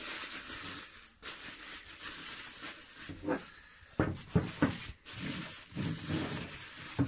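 Thin clear plastic bag crinkling and rustling as it is gripped and pulled at to get it open.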